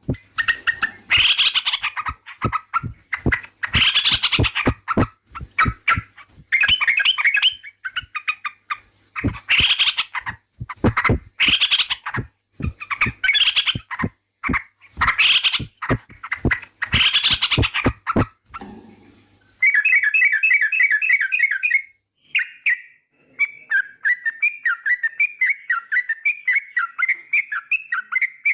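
Yellow-vented bulbul (trucukan) calling: loud, harsh chattering phrases repeated about every two seconds. About two-thirds of the way through, these give way to a rapid trill and then a run of quick warbled notes.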